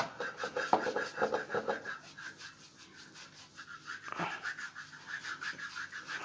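A scrubbing brush rasping over the soles of callused feet in a basin of water, in quick repeated strokes.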